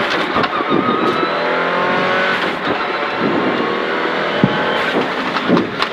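Prodrive Subaru Impreza N11's turbocharged 1994 cc flat-four boxer engine pulling hard in the cabin of the rally car, its pitch climbing over the first two seconds or so, with engine and road noise throughout and one sharp knock about four and a half seconds in.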